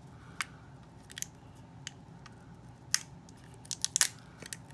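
Small plastic doll-accessory packaging being pulled and worked apart by hand: scattered sharp clicks and crinkles, with several in quick succession about four seconds in.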